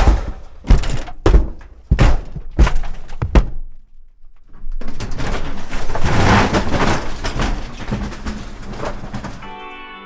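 Heavy thunks from a shed being struck, about seven hits in the first three and a half seconds. After a short pause, a long clattering, crumbling crash lasts about five seconds. A steady pitched tone starts near the end.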